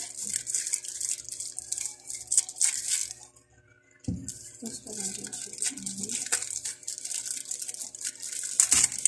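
White packing paper rustling and crinkling in irregular bursts as it is unwrapped by hand, pausing briefly a little past three seconds in.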